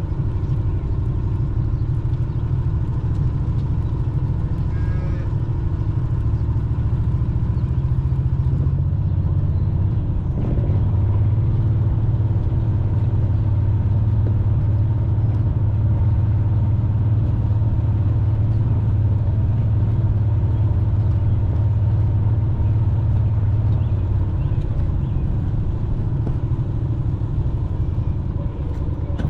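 A vehicle engine runs steadily with a low rumble, its note rising a little and settling about ten seconds in.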